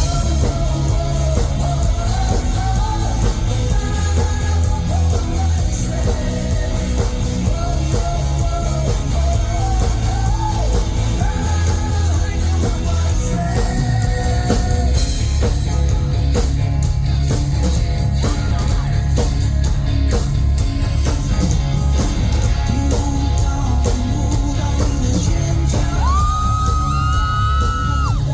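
Live rock band playing a song with male lead vocals over drums, bass and guitar, heard from the audience. A long high note is held near the end.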